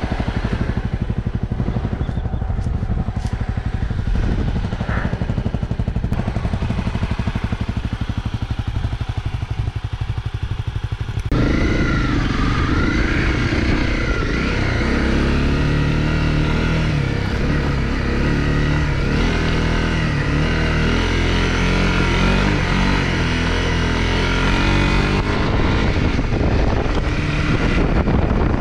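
Honda CRF250 Rally's single-cylinder four-stroke engine running at low revs, then about eleven seconds in abruptly louder, its revs rising and falling as the bike rides on.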